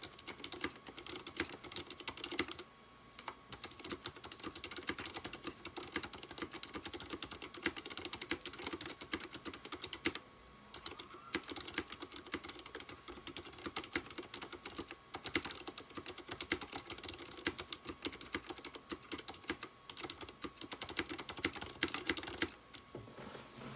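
Typing on an IKBC MF108 mechanical keyboard with Cherry MX Silent Red switches, PBT keycaps and sound-dampening foam in its aluminium case: a fast, continuous run of key presses, with brief pauses about 3, 10 and 20 seconds in.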